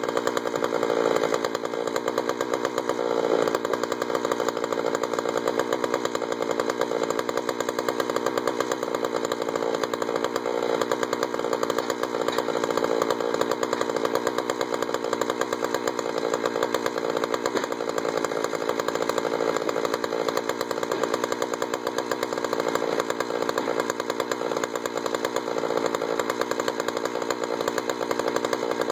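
A Jonsered 2091 two-stroke chainsaw running steadily at an even pitch.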